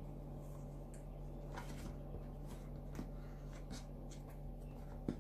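Faint paper rustles and soft handling noises as a hand-bound notebook is closed and handled, with a sharper click just before the end, over a steady low hum.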